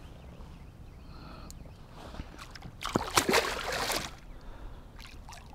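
Hooked channel catfish thrashing at the surface beside a kayak, splashing hard for about a second and a half starting roughly three seconds in.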